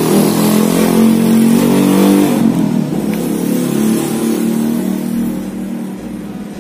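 A motor vehicle's engine running close by, loud at first and fading away over the last two seconds or so as it passes.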